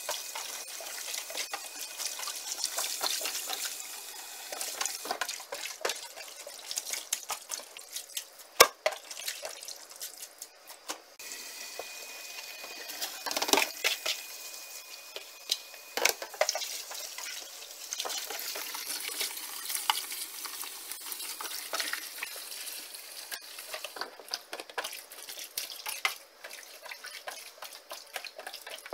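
Tap water running into a stainless steel sink while hands swish and squeeze salted napa cabbage leaves in the water, rinsing out the excess salt, with clatter from handling a plastic colander. A single sharp knock about a third of the way through is the loudest sound.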